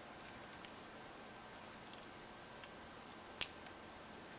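A few faint ticks and one sharp click about three and a half seconds in, from small plastic laptop parts being handled as the LCD cable is seated back in its connector.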